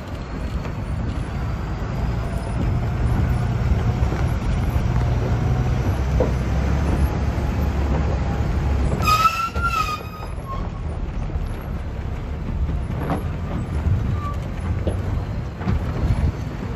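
A bus engine and body running with a steady low rumble over a rough gravel mountain road. About halfway through, a short high tone with overtones sounds for about a second.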